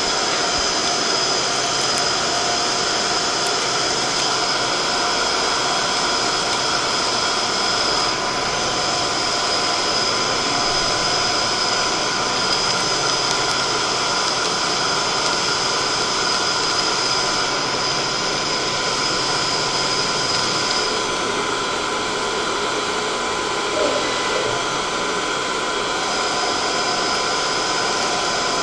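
CNC machine running steadily: a continuous machine noise with a high whine that drops out about twenty seconds in and returns about five seconds later.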